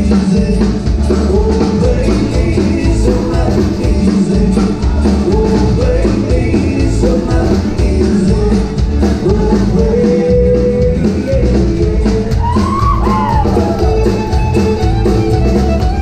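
Live country band playing: electric bass, fiddle, acoustic guitar and drum kit, loud and steady.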